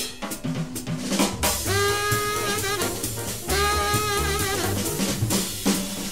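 Live jazz quartet playing a blues: a drum kit with snare and rimshot strokes over double bass notes, with the tenor saxophone sounding two long notes with vibrato in the middle.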